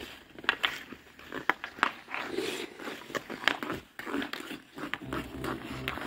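Ice hockey stick clacking on a puck and skate blades scraping ice as a skater stickhandles: a string of sharp clicks at uneven intervals.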